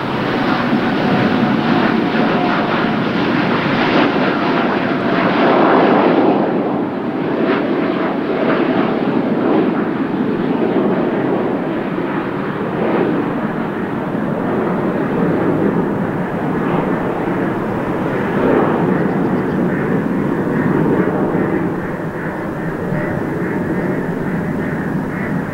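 Boeing 787-9 Dreamliner's jet engines at takeoff power, a loud steady jet roar with a faint whine that slowly falls in pitch. The sound peaks about five to six seconds in and then slowly fades as the airliner climbs away.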